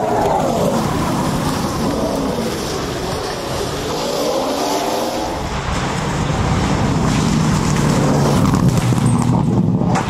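Opel Corsa-e electric rally car's motor whine, rising and falling in pitch as it drives through. About five and a half seconds in, it gives way to a Mitsubishi Lancer Evolution X rally car's turbocharged four-cylinder engine running hard at speed.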